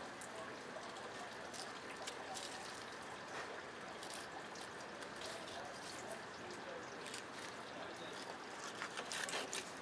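Water trickling steadily, with a few sharp clicks or taps near the end.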